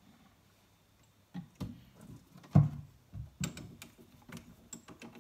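Scattered metal clicks and knocks from a lathe's tailstock drill chuck and its chuck key being handled, with one sharper knock about two and a half seconds in and a run of lighter clicks after it.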